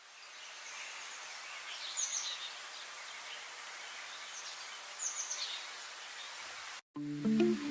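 Outdoor ambience fading in: a steady hiss with a small bird giving short, high, falling chirps about two seconds and five seconds in. It cuts off abruptly near the end, and plucked guitar music starts.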